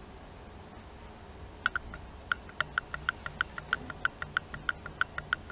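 Sewing machine stitching at a slow, even speed: a regular clicking of about six stitches a second, starting a little before two seconds in.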